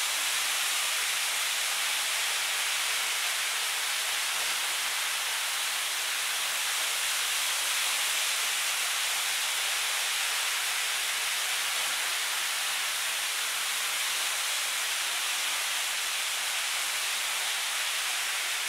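Model trains running around a miniature railway layout: a steady, even rushing hiss from their wheels and motors on the track.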